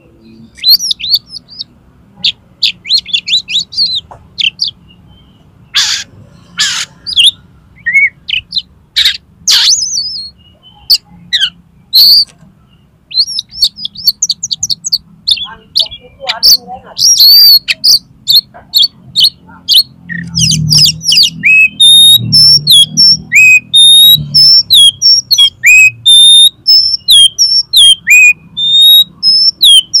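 Oriental magpie-robin singing a loud, varied song: chattering trills and harsh rasping notes, then from about twenty seconds in a fast run of sharp downslurred whistles, several a second. This is the excited 'konslet' song style of a male kacer.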